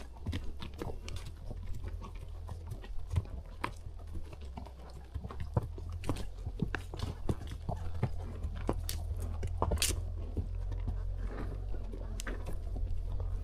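A horse on a trail ride: a run of irregular clicks and crunches over a steady low rumble.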